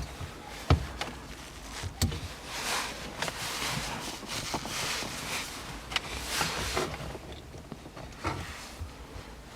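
Small plastic bushings being worked off a gear-shift lever by hand: scattered sharp clicks and a few knocks over rustling and rubbing of the parts.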